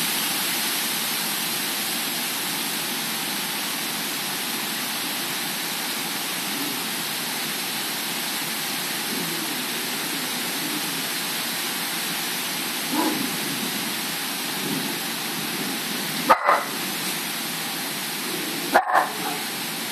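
Steady hiss of heavy thunderstorm rain and gusting wind. A dog yips faintly partway through, then barks sharply twice near the end.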